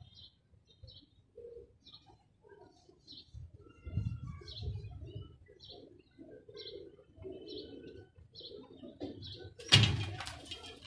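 Domestic pigeons cooing, with short high chirps throughout. Near the end, a loud, brief flurry of wingbeats as a pigeon flaps about on the perches.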